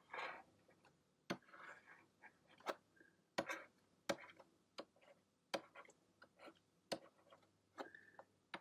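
Faint, irregular sharp clicks, roughly one every half second to second, with soft scraping between them: drawing strokes being made on a digital tablet.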